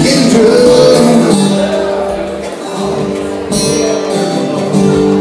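Live acoustic guitar being strummed while a man sings into a microphone.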